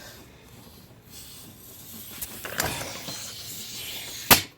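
Compressed air hissing from the mini die grinder's leaky air-hose fitting as it is hooked up, growing over a few seconds. A sharp click near the end is followed by the hiss stopping.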